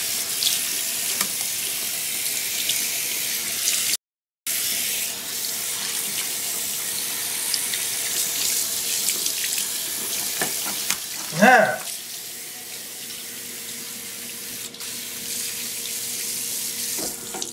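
Bathroom sink faucet running, water streaming into the basin and over a rabbit being washed by hand. The sound cuts out for about half a second early on, and a short vocal cry comes about two-thirds of the way through.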